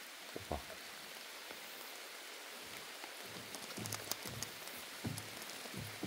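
Steady hiss of rain falling, with a few soft low thumps scattered through it and a brief cluster of sharp ticks about four seconds in.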